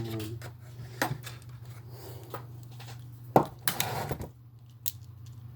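Small plastic parts of a remote-control car being handled and fitted by hand: a few scattered clicks and knocks, clustered a little past the middle, over a faint steady low hum.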